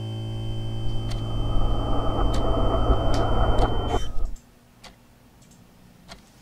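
Music swelling into a loud, dense climax over sustained chords, then cutting off suddenly about four seconds in, followed by a quiet stretch with a few faint clicks.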